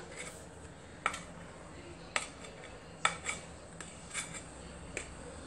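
Dough scraper knocking and scraping against a mixing bowl as risen dough is worked out of it: about six light, separate clicks roughly a second apart over a faint steady hum.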